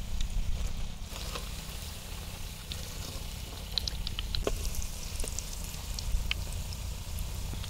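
Egg vadai fritters deep-frying in hot oil in an iron kadai: a steady sizzle with many scattered crackles and pops, over a low rumble.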